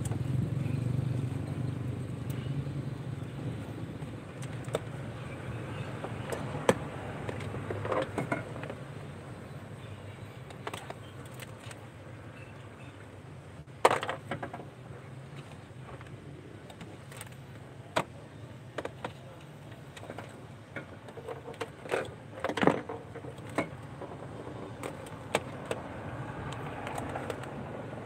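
Scattered clicks and knocks of pliers and wires being handled during car-alarm wiring. A low hum is heard at the start and fades within the first few seconds.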